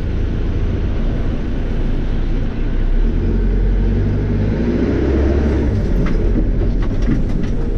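Cat 430E backhoe loader's diesel engine heard from inside the cab, running steadily and then rising in pitch about three seconds in as it works under load to scoop a bucketful, easing back near the end.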